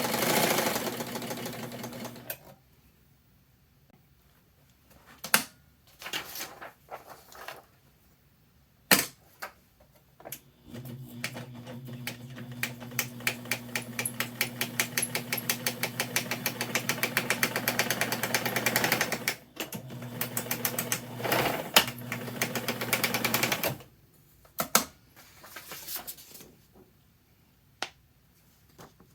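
Bernina 801 Matic electronic sewing machine stitching in runs: a steady motor hum under a fast, even clatter of stitches. It stops and starts several times, with separate clicks and knocks in the quiet gaps.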